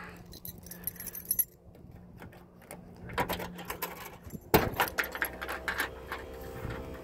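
Keys jangling and scraping as a key is worked in the trunk lock of a 1988 Lincoln Town Car, then a sharp clunk about four and a half seconds in as the latch lets go and the trunk lid opens, followed by a steady hum.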